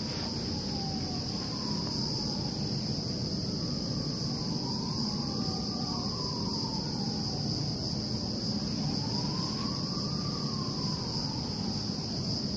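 Insects keep up a steady high-pitched chirring while a distant siren wails, its pitch slowly rising and falling every few seconds, over a low background rumble.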